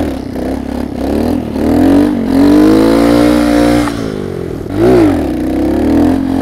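Small monkey-bike engine revving up and down while ridden. There is a quick rise and fall at the start, a long held high rev in the middle, and another quick rise and fall near the end.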